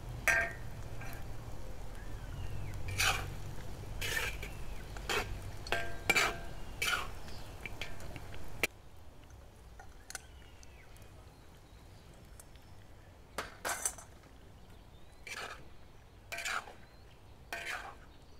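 Metal spatula scraping and clinking against a cast iron wok as chicken pieces are stirred in hot oil, about one stroke a second over a low steady frying noise. About halfway through the frying noise drops away suddenly, and only a few scattered scrapes follow.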